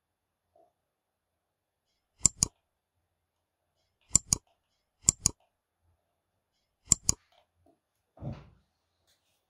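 Computer mouse clicked four times, each click a quick pair of sharp snaps, spaced a second or two apart.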